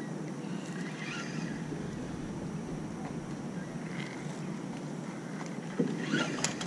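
Steady wind noise on the microphone by the river, with a quick cluster of knocks and clicks near the end as the rod and spinning reel are jerked.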